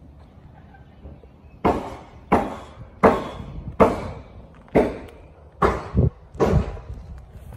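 Footsteps of someone walking, about eight sharp thuds starting about a second and a half in, roughly one every three-quarters of a second, each dying away briefly.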